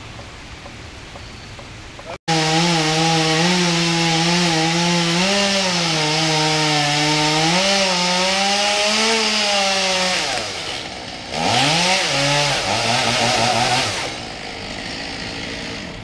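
Two-stroke chainsaw running at high revs and cutting wood, starting abruptly about two seconds in, its pitch wavering under the load. About ten seconds in the revs drop, rise and fall again, and the saw runs lower and quieter near the end.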